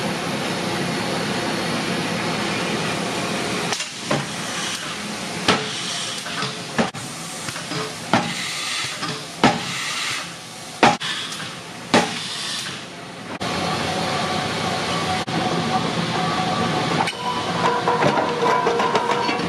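A steady hiss of the forge, then a B-1 drop hammer striking a red-hot axe blank between its forging dies: about seven heavy blows, one to one and a half seconds apart. After the blows comes a steady machinery noise with a held hum.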